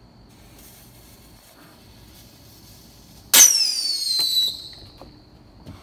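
A handheld firework goes off about three seconds in with a loud, shrill whistle that falls in pitch over about a second. It is followed by a few sharp cracks. It is a firework going off in the hand.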